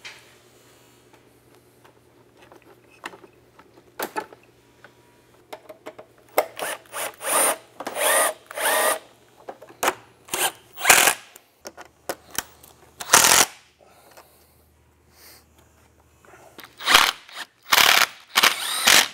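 Cordless drill-driver run in a series of short bursts, driving in screws to fasten the snowmobile's headlight assembly and hood plastics, with a few sharp knocks in between.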